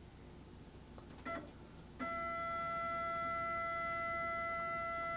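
STEPCRAFT CNC's stepper motors jogging the machine at a constant speed. There is a short whine blip about a second in, then a steady, even whine of several fixed pitches from about two seconds on.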